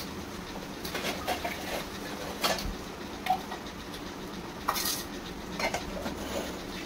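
A metal spoon stirring chicken in a metal pan on a gas stove, scraping and clinking against the pan in scattered strokes over a steady low hum.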